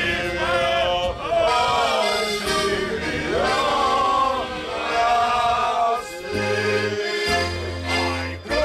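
Men singing to an accordion. The accordion's low bass notes come in from about six seconds in, in short steady blocks that change pitch.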